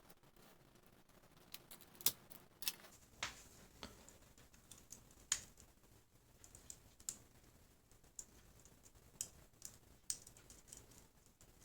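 Scattered light, sharp clicks and taps at irregular intervals, roughly fifteen in all and loudest about two seconds in, from a laptop being handled during a touchpad button repair.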